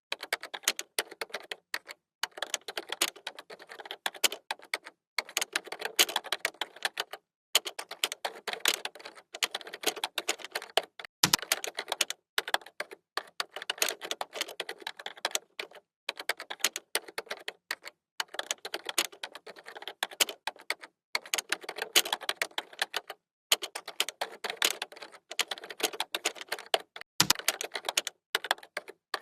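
Fast typing on a computer keyboard: quick runs of key clicks lasting a second or two, broken by brief pauses. Two heavier knocks stand out, about a third of the way in and near the end.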